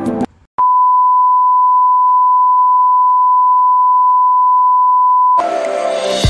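A steady, high test-tone beep, the single pure tone played over a TV test card, holds for about five seconds. Background music cuts out just before it and comes back near the end.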